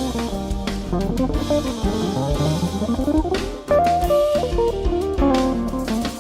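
A 335 semi-hollow electric guitar playing a single-note lead line over drums and bass guitar. The line runs down in a quick scale and then back up in the middle.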